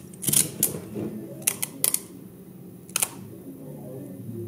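Fiberglass-reinforced strapping tape being stretched tight and worked onto a battery plate: a handful of sharp, irregular crackles and snaps over faint handling noise.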